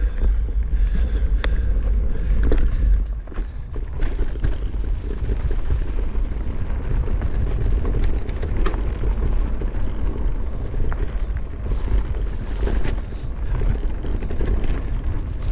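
Wind buffeting the microphone and bicycle tyres rumbling over a dirt trail, with scattered clicks and knocks as the bike goes over bumps.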